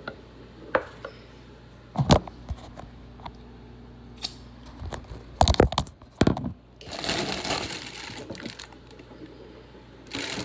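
Kitchen handling noises: several sharp knocks and clunks against a metal cooking pot and the counter, the loudest about two seconds in and a cluster a little after five seconds, then about two seconds of rustling, as of a plastic bag of spinach being handled.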